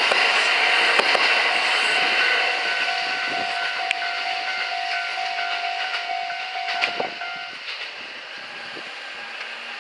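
A Kintetsu electric train running over the rails and fading away as it passes a level crossing. The crossing's warning bell rings in even strokes, about two a second, and stops about seven and a half seconds in.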